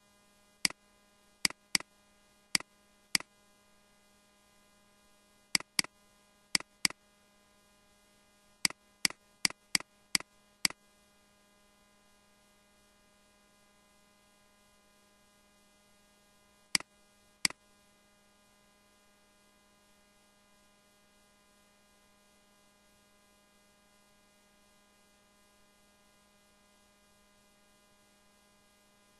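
Computer mouse clicks, each a quick press and release, in irregular clusters as strokes are written on screen, with two more a few seconds later. Under them runs a steady electrical mains hum.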